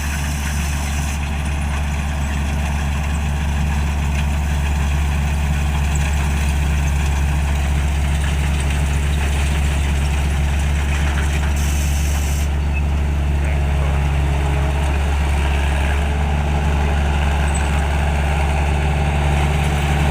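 Large 225 HP rice combine harvester's diesel engine running steadily, a constant deep drone with no change in speed.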